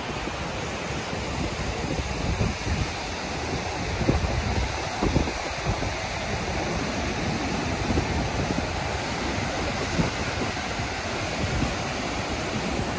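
Steady rushing of a river in flood pouring over wide rock ledges and rapids, the Narmada in spate. Wind buffets the microphone in gusts now and then.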